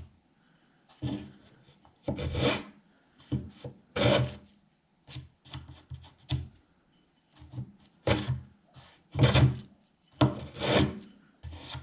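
Hand plane shaving down a wooden wedge that sticks proud: a series of separate scraping strokes of wood, irregularly spaced and some longer and louder than others, with a run of quicker, shorter strokes near the end.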